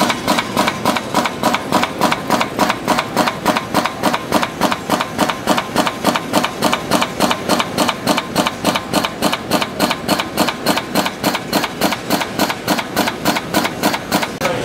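Servo-driven dual belt tractor feed and pneumatic cutter head cycling fast, feeding thin metal strip and shearing it into blanks. It makes a steady, rapid clacking, about three to four cuts a second.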